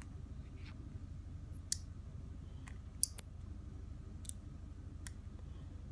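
Scattered light clicks and taps of the Nautilus Mini vape tank's metal and glass parts being handled and twisted in the fingers, about eight in all, with the sharpest pair close together about three seconds in.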